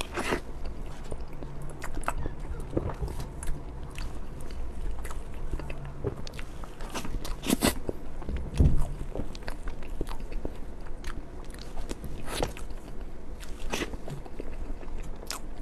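Crepe cake being eaten close to the microphone: bites and chewing with many short clicks, and a few louder ones scattered through.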